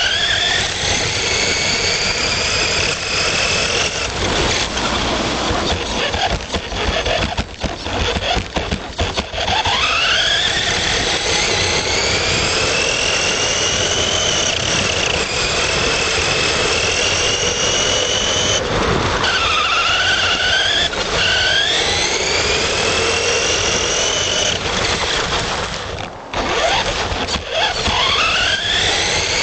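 Electric drive motor of an HSP Brontosaurus RC monster truck, heard from onboard, whining and rising and falling in pitch as the truck speeds up and slows while ploughing through deep wet snow, over a steady rush of noise. The whine drops away briefly around a third of the way in and again near the end.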